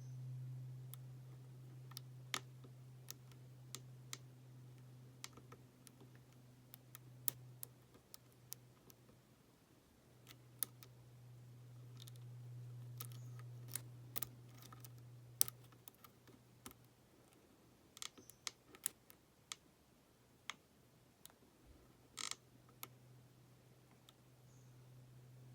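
Irregular small metallic clicks and ticks of a lock pick and tension wrench working the pins in the keyway of a Master Lock 570 padlock, with a low steady hum coming and going underneath.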